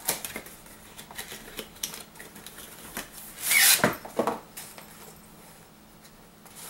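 A cardboard product box being opened and a padded nylon carrying case handled: scattered taps and clicks, with one loud brief scrape about three and a half seconds in.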